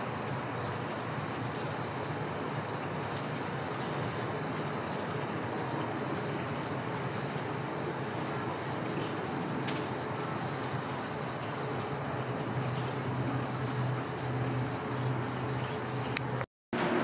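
Insects calling: a steady high-pitched trill, with a second, slightly lower call pulsing in a fast, even rhythm over it. A faint low hum joins near the end, and the sound cuts off abruptly just before the end.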